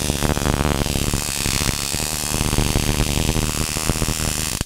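High-voltage arc in a 1972 Admiral SS 690 tube colour television, shorting out at what the owner guesses is the high-voltage tripler, through cracked, carbon-burned plastic: a loud, continuous hissing crackle with a buzz underneath.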